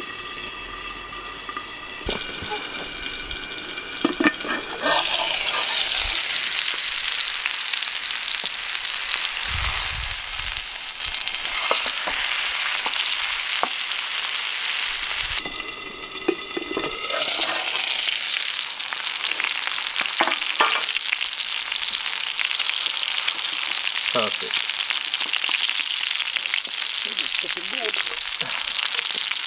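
Steak frying in oil in a pan on a wood-burning stove. The sizzle is muffled under a pan lid at first, then becomes a loud, steady sizzle from about five seconds in once the steak is uncovered. It dips briefly around the middle, with a few light knocks.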